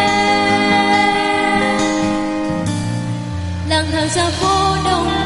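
A pop song played by a small band with drum kit, guitar and keyboard, with singers on microphones through a PA system. Long held notes give way to a new sung phrase about four seconds in.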